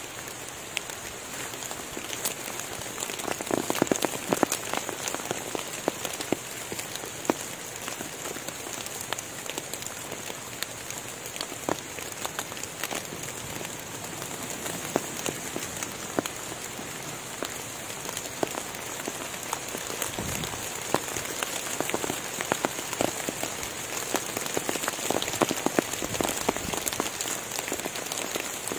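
Rain falling on forest foliage and leaf litter: a steady patter with many separate drops tapping irregularly on the leaves.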